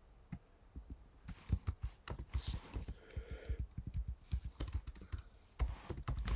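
Typing on a computer keyboard: irregular key clicks, starting about a second in.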